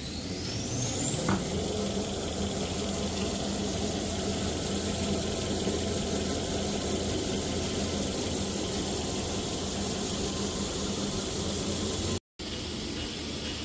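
Toilet paper and kitchen towel making machine running: a high whine rises over the first two seconds, then holds steady over a low mechanical hum. The sound breaks off for a moment near the end.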